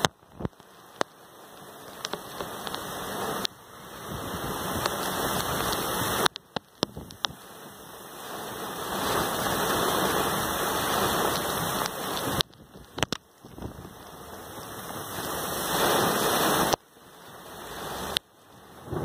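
Heavy tropical-storm rain pouring down, a steady rush that swells and eases in waves, with a few sharp taps. The sound cuts out abruptly for a moment several times.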